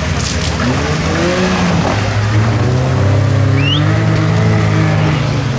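Small off-road SUV's engine running hard under load as it drives through deep mud; the revs climb about two seconds in, hold, and ease off near the end.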